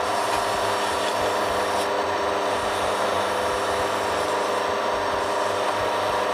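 Fine sandpaper, about 800 grit, rubbing against a teak workpiece spinning on a wood lathe. It makes a steady, even rubbing hiss over the lathe motor's constant hum.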